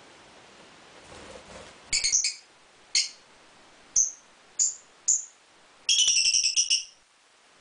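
Lovebirds giving short, shrill chirps: a doubled call about two seconds in, single calls at roughly one-second intervals after that, then a quick run of chirps near the end.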